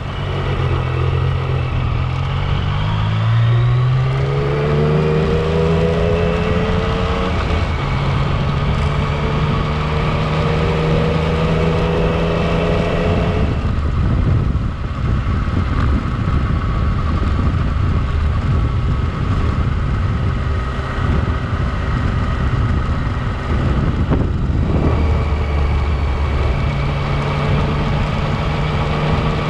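Yamaha Tracer 900's three-cylinder engine pulling away from a standstill, its note rising over the first few seconds, then running steadily at road speed. There are two brief drops in the engine note, about halfway through and near the end, at gear changes.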